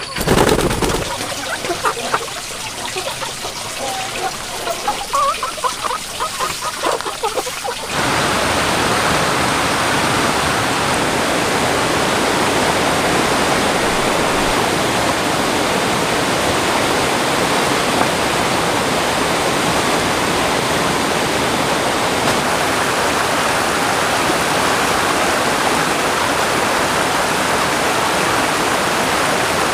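A white dove's wings clap as it takes off, followed by faint chirping birdsong. About eight seconds in, a steady, even rushing of water begins abruptly and holds at one level.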